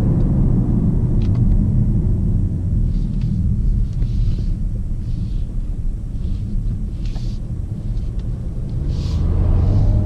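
In-cabin rumble of a BMW 750d xDrive's straight-six diesel engine and tyres as the car slows to a crawl in second gear for a turn. Near the end the engine note rises as the car pulls away again.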